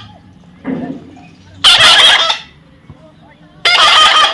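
A parrot giving two loud, harsh screeching calls, each under a second long, about a second and a half and about three and a half seconds in.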